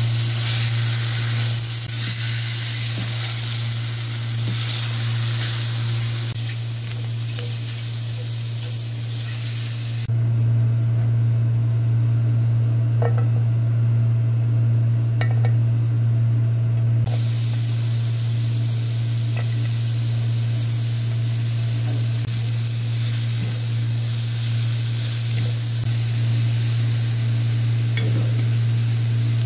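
Chicken and mushrooms sizzling as they fry in a pan, with occasional scrapes and clinks of stirring, over a steady low hum. The sizzle thins out for several seconds around the middle, then returns.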